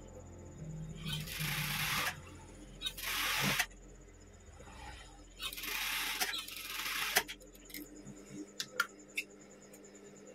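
Typical industrial lockstitch sewing machine stitching a sleeve seam in three short runs over the first seven seconds, with a steady low motor hum underneath. Scattered light clicks follow near the end.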